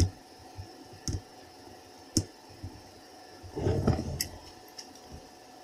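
Small sharp clicks and knocks as a die-cast Matchbox Super Kings Peterbilt toy tow truck is handled, with its metal tow hooks and sling. A short, denser clatter comes about three and a half seconds in, then a few faint ticks.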